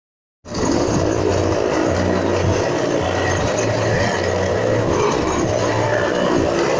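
Motorcycle and car engines running hard, with their tyres rumbling on the wooden planks of a well-of-death wall as they ride round it. A loud, steady drone comes in suddenly about half a second in, and its low rumble swells and fades about once a second.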